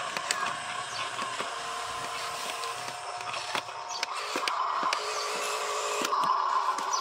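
Small electric motor of a Huina RC dump truck whining as it drives the tipper bed up, growing louder about four seconds in and again near the end, with scattered small clicks and ticks.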